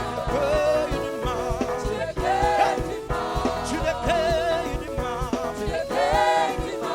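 Gospel music with a singer's voice over a band with a steady beat; the sung lines waver and slide in pitch.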